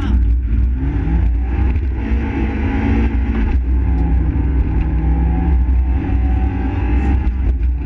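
Fiat Seicento rally car's four-cylinder engine, heard from inside the cabin, pulling hard under acceleration. The engine note climbs in pitch, breaks off briefly about three and a half seconds in and again near the end as gears are changed, and holds steady in between over a constant rumble of road noise.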